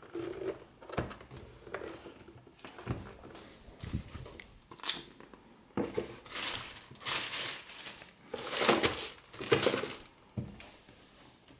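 A few clicks and knocks as the plastic lid of a vacuum sealer is closed and the machine is handled, then loud plastic crinkling from a plastic-wrapped roll of vacuum sealer bags being picked up and set down.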